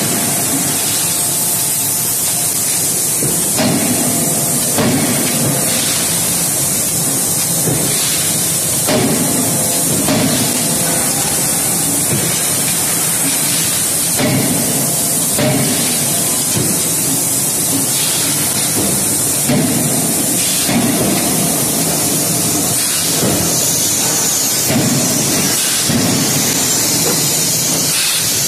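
Hot-forging line machinery running: a steady loud hiss with heavy metal impacts and clanks recurring irregularly every one to few seconds.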